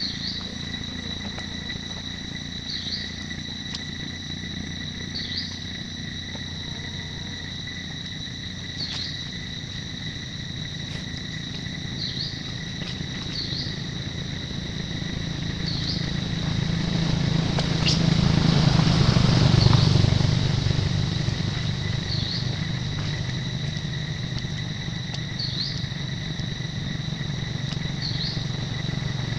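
Steady, high-pitched drone of forest insects, with short chirps every second or two. A low rumble swells about two-thirds of the way through, then eases off.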